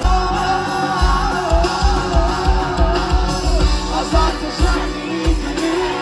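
Live Turkish pop concert: a male singer sings over a full band with a steady kick-drum beat.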